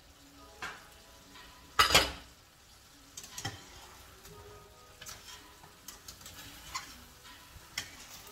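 Metal spoon stirring, tapping and scraping in a stainless pan of adobo turkey neck and potatoes simmering in sauce, with a low sizzle underneath. A single loud clank about two seconds in as the pan's glass lid is taken off and set aside.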